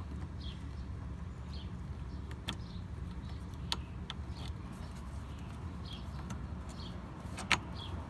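A steady low hum with a few sharp clicks, about two and a half, three and a half and seven and a half seconds in, as an A/C recharge hose's coupler is worked onto a car's low-pressure service port.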